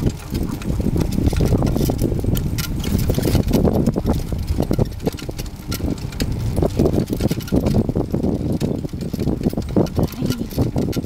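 Sacco Cart dog rig rolling fast over asphalt behind two running dogs: a steady rumble of the wheels on the road, with many small rattles and clicks from the cart's metal frame.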